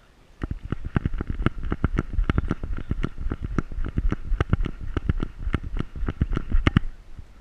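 Rapid knocking and thudding from a camera strapped to a running Pointer, jolted with each stride at about seven knocks a second. It starts about half a second in and stops near the end.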